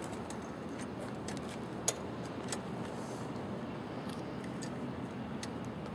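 A steady low rumble of outdoor background noise, with scattered light clicks and taps and one sharper click about two seconds in.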